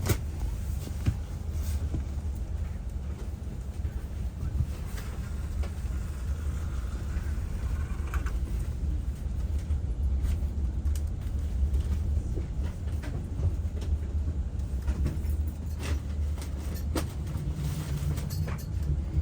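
Steady low rumble of vehicle noise, with scattered clicks and knocks.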